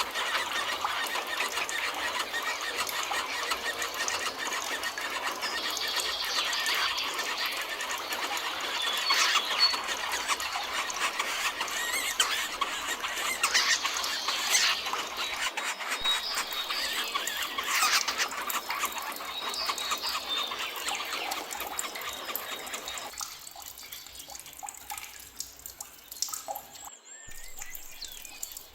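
Dense chorus of many forest birds calling and chattering at once, with many short shrill chirps overlapping. The chorus thins and gets quieter in the last few seconds.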